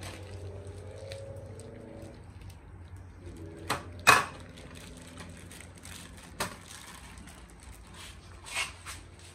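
Plastic meat packaging crinkling and tearing as a pork roast is pulled out of its bag, with a few sharp crackles, the loudest about four seconds in. A faint steady hum lies under the first two seconds.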